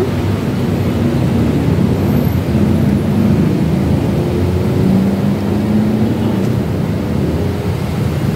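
Steady low rumble of road traffic, cars passing on the street below. A low engine hum stands out about five to six seconds in.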